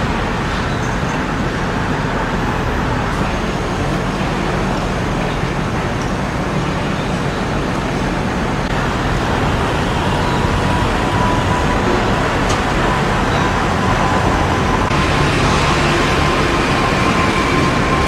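Steady road-traffic noise, an even rushing hiss, with a faint steady whine coming in about halfway through.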